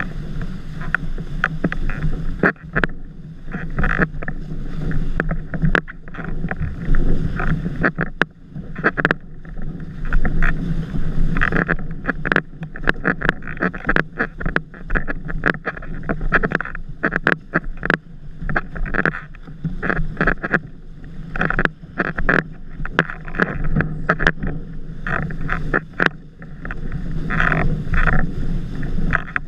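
Windsurf board planing fast over choppy water: steady rushing and spraying with many irregular short slaps and knocks as the board hits the chop, and wind buffeting the rig-mounted camera's microphone.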